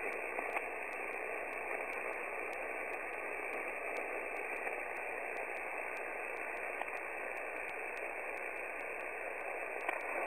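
Shortwave receiver hiss: 20-metre band noise from a receiver tuned to 14.325 MHz upper sideband with no station transmitting. A faint steady tone sits under the hiss.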